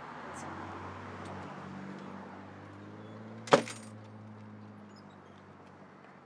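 Steady low engine-like hum that fades slowly, with a single sharp click about three and a half seconds in.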